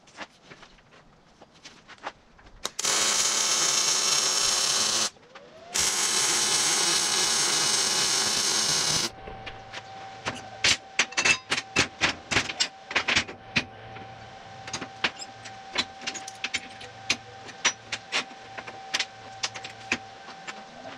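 Electric welding on steel suspension A-arms: two steady hissing welding runs, the first about two seconds long and the second about three, with a short break between them. They are followed by a long string of sharp metallic clicks and taps over a steady hum.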